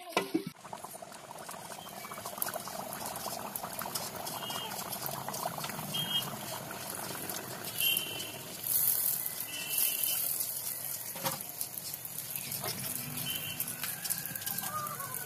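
Pakan pitha batter deep-frying in hot oil in an iron karahi: a steady crackling sizzle of bubbling oil around the cake.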